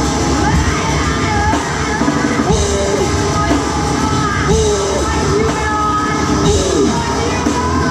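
Live noisecore band playing loud: drums, bass guitar and harsh-noise electronics, with a vocalist yelling into a microphone. Wavering, gliding squeals run through it.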